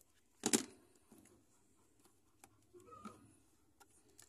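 A single brief knock or clatter about half a second in, then faint scattered ticks over low room sound.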